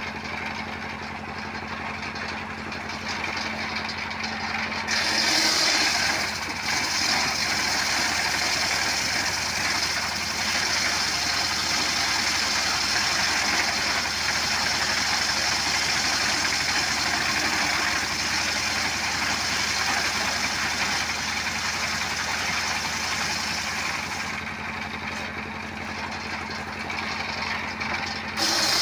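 Motorcycle engine driving a homemade wood-cutting machine, running steadily. About five seconds in it gets louder, with a strong hiss over the engine, and it drops back to a lower run a few seconds before the end, rising again at the very end.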